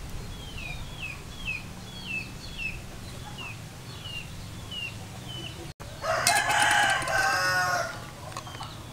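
A rooster crows once, loud and about two seconds long, just past the middle. Before it, a small bird repeats a short falling chirp about twice a second over a steady low hum.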